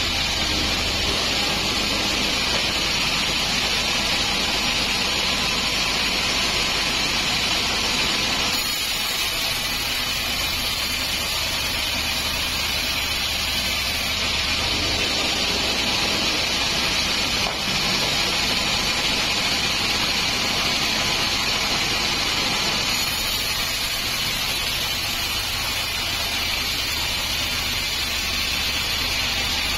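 Sawmill band saw running steadily as it rips lengthwise through a teak log.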